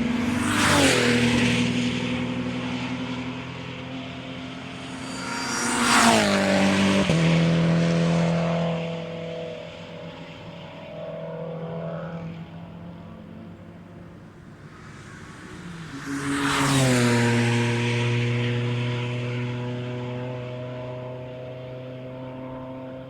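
Race cars passing at speed: three loud pass-bys, about a second in, around six seconds in and around seventeen seconds in, each with the engine pitch dropping sharply as the car goes by. After each pass the engine note fades into the distance.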